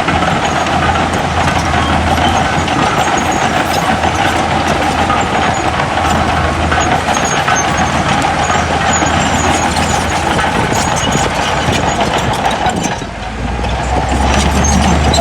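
Diesel engine of heavy earthmoving machinery running steadily, with a short dip in level near the end after which a deeper low hum comes in.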